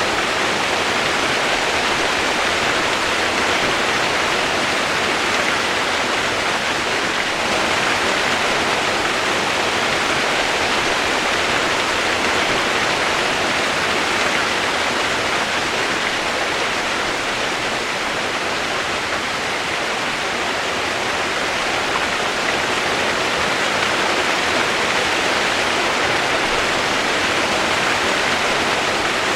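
Steady rush of flowing water, an even hiss with no separate drops, splashes or other events standing out.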